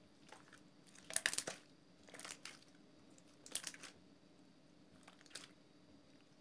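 Soap-and-water slime crackling and popping as hands stretch and press it, in four short bursts, the one about a second in the loudest.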